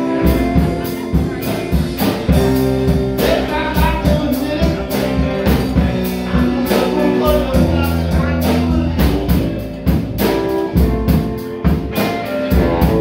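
Live rock band playing electric guitars, electric bass and drum kit, with a steady drum beat.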